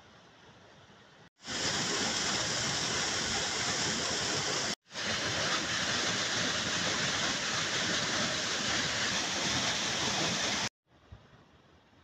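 Water of a partly frozen waterfall rushing close by, a loud steady rush that starts abruptly about a second in, breaks off for an instant about a third of the way through, and cuts off near the end. Before and after it there is only a faint hiss.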